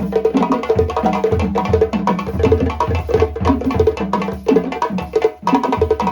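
Balafon played fast in rapid struck wooden notes over a low drum beat, with a brief break near the end before the pattern resumes.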